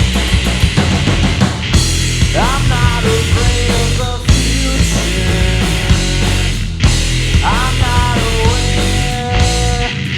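Loud live punk-rock band of electric guitar, bass guitar and drum kit playing an instrumental passage. A rising, bending guitar phrase comes twice, about five seconds apart, over steady drums and bass.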